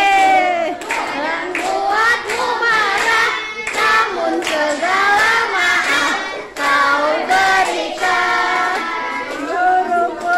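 Children singing a song together, a melody with some long held notes.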